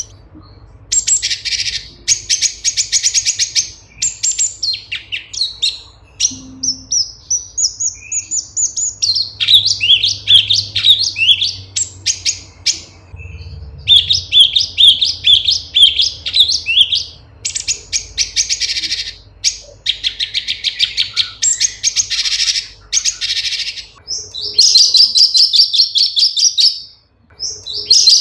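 Cucak cungkok leafbird singing a fast, varied song: rapid trilled runs of chirps, falling whistled sweeps and a buzzy repeated phrase near the end, broken by short pauses.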